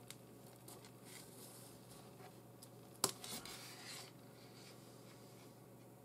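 Nylon 550 paracord sliding through a loop and rubbing against fingers: faint rustling scrapes, then a sharp click about three seconds in followed by about a second of rasping as the cord is drawn through.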